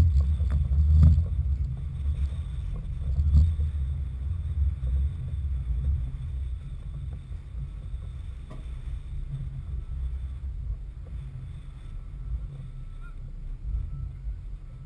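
Wind buffeting the microphone: a low, gusty rumble, strongest in the first few seconds and then steadier.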